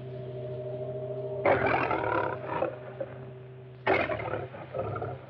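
Lion roaring twice, each roar a little over a second long and about two and a half seconds apart, over a low steady hum. It is heard on an old, narrow-band film soundtrack.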